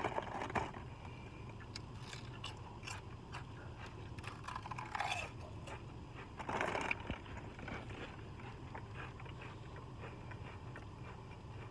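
Crunchy potato chips (bacon-wrapped jalapeno flavoured Lay's) being bitten and chewed: a run of small crisp cracks, with louder crunches about five seconds in and again near seven seconds.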